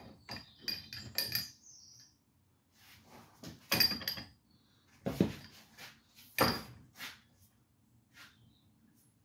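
Irregular metal clanks and knocks, some with a short ringing, as tools are worked on a seized hoist spindle. About eight separate strikes, the loudest about four seconds in and again at six and a half seconds.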